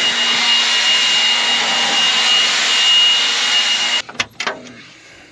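Cordless battery leaf blower running flat out with a steady high whine, blowing dust and chaff off a combine. It cuts off suddenly about four seconds in, followed by a few light clicks.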